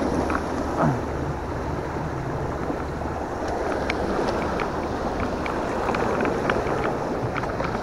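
Sea waves washing against shoreline rocks, with wind buffeting the microphone and scattered light clicks.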